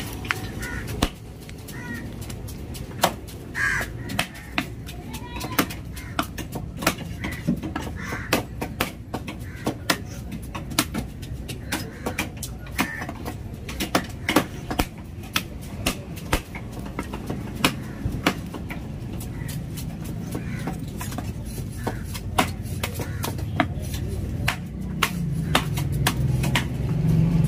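Heavy cleaver chopping through tuna head and bone on a wooden log chopping block: repeated sharp chops at an uneven pace. Crows cawing now and then, mostly in the first few seconds.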